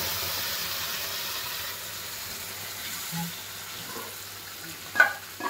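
Ground spinach and tomato paste sizzling as it is poured into a hot pan of frying onions, the sizzle slowly dying down. About five seconds in, a sharp knock.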